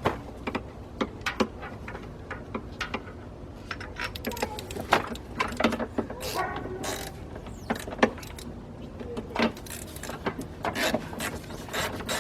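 3/8-drive ratchet on a long extension and swivel spark plug socket clicking in short, irregular spurts, with scattered knocks of the tools against the engine, as a spark plug is worked loose on a Ford Ranger V6.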